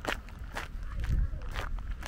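Footsteps on a gravel path, about two steps a second.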